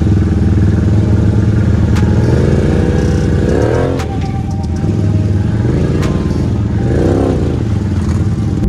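ATV engines revving under load as a stuck ATV is pulled out of a mud hole on a tow strap; the engine note rises and falls twice, with a few sharp knocks.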